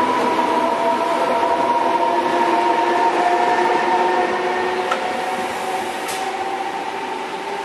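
A Trenitalia E464 electric locomotive pushing a regional train away: its traction equipment whines with several steady tones over the rumble of wheels on the rails. The sound fades in the second half as the train draws off.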